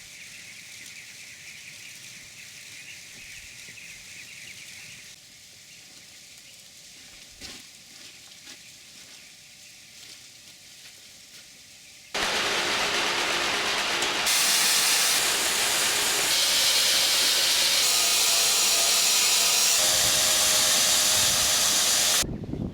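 Faint steady background noise, then about twelve seconds in a loud, steady hiss starts suddenly and jumps in level a few times.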